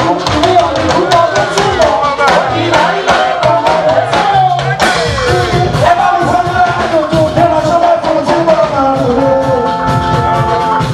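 Loud upbeat music with a singing voice over drums and a band, with a steady beat.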